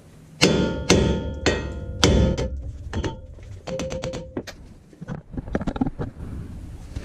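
Hammer blows on a steel wheel hub-and-bearing assembly, pounding it to break it loose from the front axle shaft: four heavy, ringing strikes about half a second apart, then a run of lighter, quicker knocks that die out a few seconds in.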